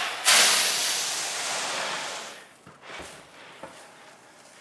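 Roasted coffee beans poured out in a sudden rushing rattle that fades over about two seconds, followed by a shorter, quieter pour about three seconds in.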